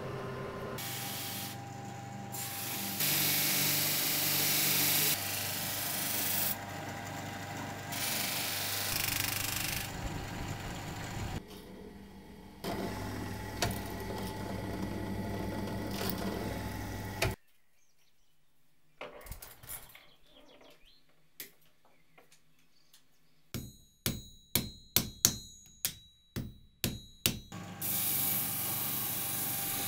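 Knife-making workshop tool sounds in quick succession. A drill press bores through a knife handle. After a near-quiet stretch come about nine sharp, ringing hammer blows on metal. Near the end a grinding wheel starts running steadily.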